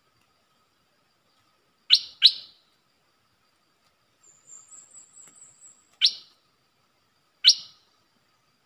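Stripe-throated bulbul calling: four short, sharp notes, a quick pair about two seconds in, then single notes about six and seven and a half seconds in. Between them comes a thin, very high, fluttering whistle.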